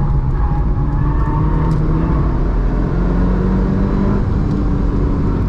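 Mitsubishi Lancer Evolution 6.5 Tommi Makinen Edition's turbocharged 2.0-litre four-cylinder engine running steadily while the car is driven, its revs rising gradually over the first few seconds, with road noise underneath.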